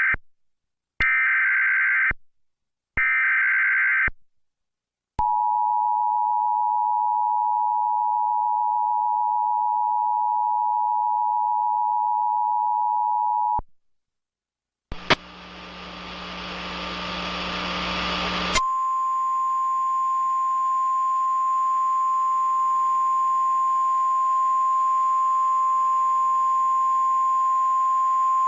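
Emergency Alert System tornado warning tones: short bursts of digital header data about a second apart, then, about five seconds in, the steady two-tone attention signal held for about eight seconds. After a brief gap, a burst of static gives way to a single steady tone over hiss.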